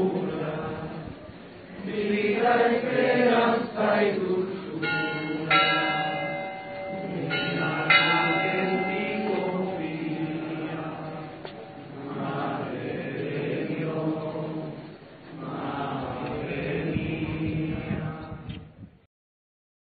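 A group of people singing together, with church bells ringing from about five to eleven seconds in. The sound stops suddenly near the end.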